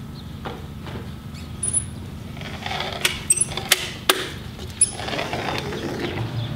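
Manual caulking gun being worked along the door trim: a few sharp clicks of the trigger and plunger rod, bunched together about three to five seconds in, over a steady low background hum.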